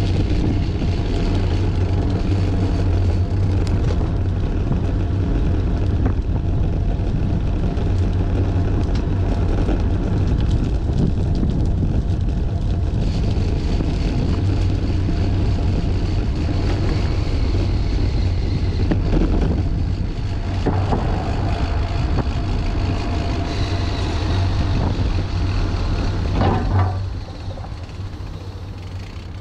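Steady wind buffeting on the microphone of a camera on a moving bicycle, mixed with tyre noise on pavement. It drops off near the end as the bike slows.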